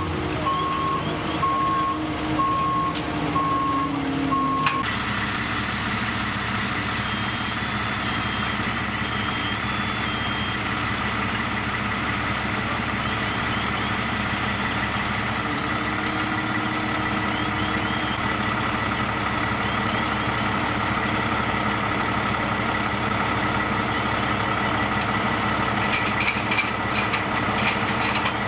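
A fire truck's backup alarm beeps at an even pace for the first five seconds. After an abrupt change, a fire apparatus diesel engine runs steadily, with a constant high whine over it.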